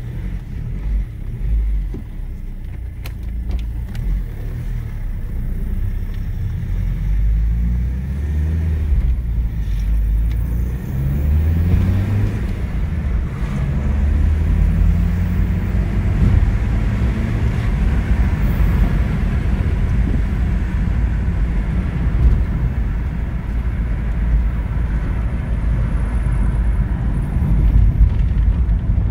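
BMW E46 318d's M47N four-cylinder common-rail diesel engine running, its pitch rising and falling several times in the first half and then holding steadier, with rising road or wind noise. The engine has worn Bosch injectors that tick or knock, a fault later cured by rebuilding all four.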